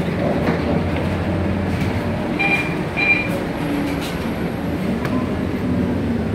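Cabin noise of a city bus, its diesel engine running with a steady low drone as it creeps up behind another bus at a stop. Two short high beeps sound a little under halfway through.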